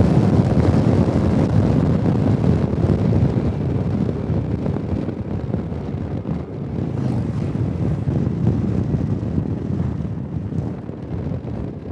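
Wind rushing over the microphone of a moving scooter, mixed with its road and engine noise: a steady low rumble that eases a little in the second half.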